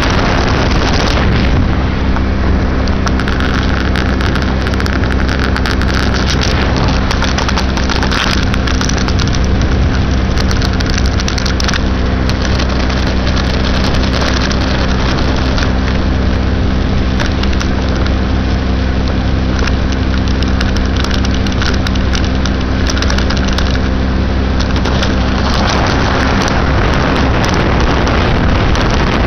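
2006 Baja SC50 moped engine running at a steady cruising pitch while riding, under heavy wind and road noise on the microphone.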